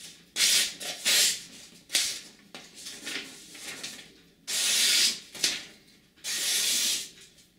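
Knife blade slicing through a hand-held sheet of paper in several separate strokes, each a short papery hiss, the two longest near the end; the freshly sharpened edge is being tested on the paper.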